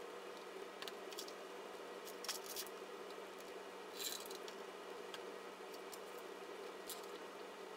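Small plastic control knobs clicking as they are picked out of a bowl and pushed onto the mixer's potentiometer and switch shafts: a few scattered faint clicks, the loudest about four seconds in, over a steady low hum.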